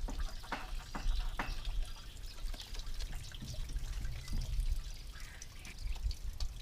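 Gasoline from the John Deere Model A's fuel system dripping and trickling down a folded piece of cardboard used as a makeshift spout, over a low rumble.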